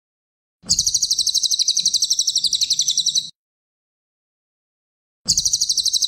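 Cililin bird song: a rapid, high trill of evenly repeated notes lasting about two and a half seconds, starting about a second in and repeated identically after a gap of about two seconds.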